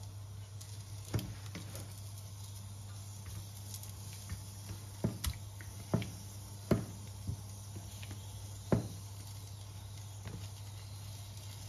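Kitchen handling sounds: a few light, separate clicks and taps of utensils and containers, scattered a second or more apart, over a steady low hum.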